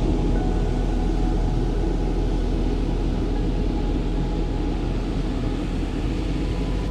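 Honda CRF1000L Africa Twin motorcycle on the move: steady engine and wind noise, with music faint underneath.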